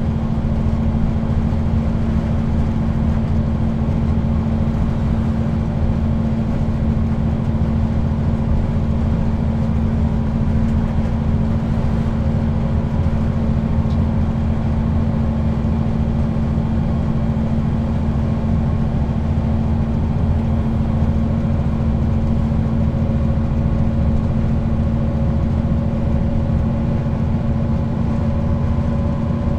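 Neoplan N 4016 city bus heard from inside the passenger saloon, its diesel engine and ZF automatic gearbox running steadily under way at motorway speed, with a constant low drone and the gearbox's whine. A tone edges slightly higher near the end.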